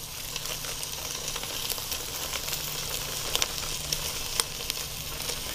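Roast beef searing in a preheated 8-quart Nutri-Stahl stainless steel roaster: a steady sizzle with scattered small pops and crackles.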